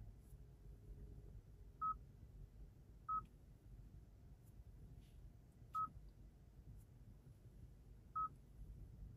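Four short electronic beeps, all of the same pitch, spaced unevenly over several seconds against a faint low background hum.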